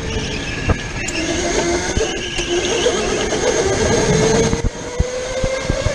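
Go-kart at speed heard from the driver's seat: a motor whine that climbs steadily in pitch as the kart accelerates out of the corner and down the straight, over steady running noise with tyre squeal and knocks. The sound drops briefly near the end as the kart lifts.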